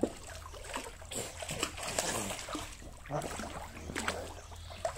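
Water splashing and sloshing in a swimming pool, in small, irregular splashes.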